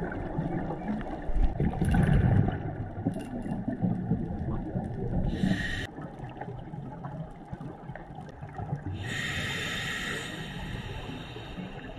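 Scuba diver breathing through a regulator underwater: hissing inhales, a short one near the middle and a longer one near the end, with the low bubbling rumble of exhaled air in between.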